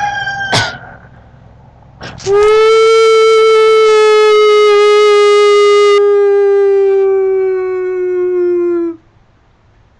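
A person howling like a wolf: a short rising whoop near the start, then one long loud held howl of about seven seconds that sags slightly in pitch before it cuts off.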